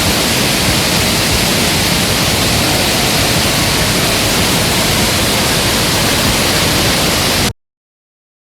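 Waterfall, a loud steady rush of falling water, cutting off abruptly about a second before the end and leaving silence.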